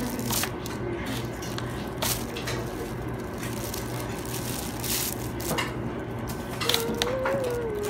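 Dinner-table sounds: scattered clinks and knocks of spoons and plates and food being handled, over a steady low room hum.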